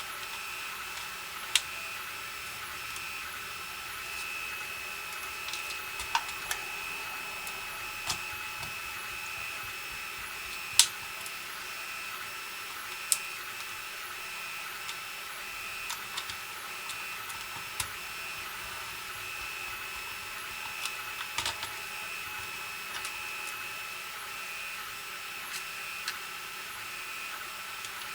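Light clicks and taps of small plastic case parts being handled and fitted, scattered irregularly, the sharpest about eleven seconds in. A steady high-pitched whine runs underneath throughout.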